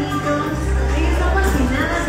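Music with a steady bass line under a wavering melody.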